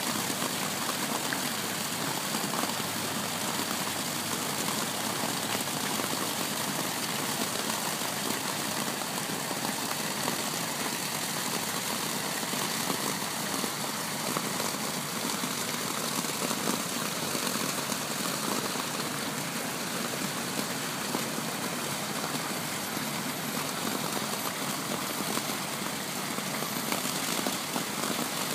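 Street fountain's water pouring down its stone walls and splashing into the basin: a steady, even rush of falling water.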